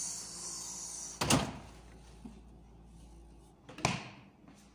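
Refrigerator door swung shut with a thud about a second in, followed by a second thump of similar loudness near the end.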